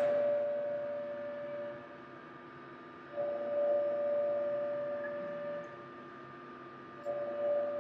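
A steady pitched whine that cuts out and comes back twice, each stretch lasting about two and a half seconds, over a faint steady hum.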